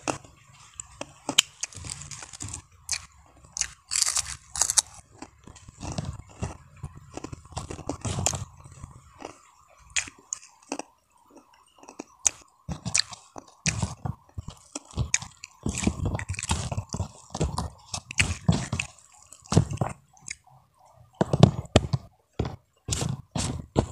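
Close-miked chewing with irregular crisp crunches, as someone eats a meal of rice with crunchy krupuk crackers.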